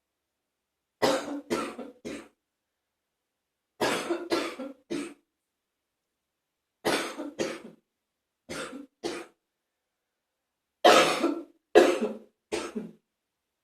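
A person's wet, phlegmy morning cough, in five bouts of two or three coughs each, the last bout the loudest.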